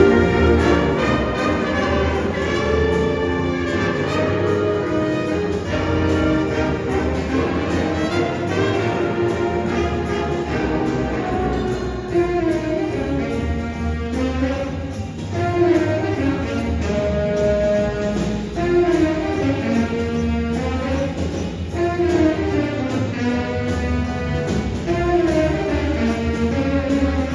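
Jazz band playing a blues tune live, with brass carrying the melody over a steady beat.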